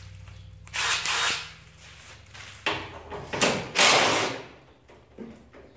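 Cordless drill running in several short bursts, the loudest about four seconds in, backing out bolts in the engine bay.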